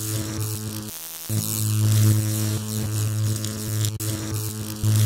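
Electrical hum-and-buzz sound effect for an animated logo: a steady low mains-like hum with crackling static over it, cutting out for a moment about a second in and then coming back louder.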